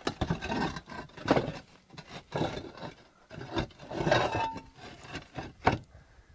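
Roof tiles being lifted and worked loose by hand: irregular scraping and rubbing of tile against tile, with several sharp knocks.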